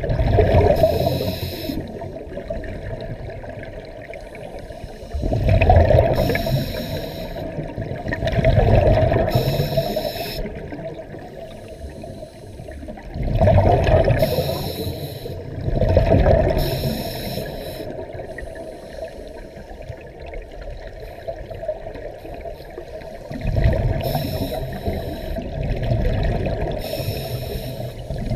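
Heard underwater, a scuba regulator's exhaust bubbling out in bursts with each breath, seven times, roughly every three seconds with a longer pause in the middle. Between the bursts the strong river current gives a low, steady rush.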